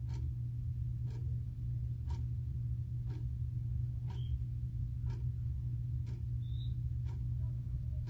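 Quartz wall clock ticking once a second, each tick a short sharp click, over a steady low hum.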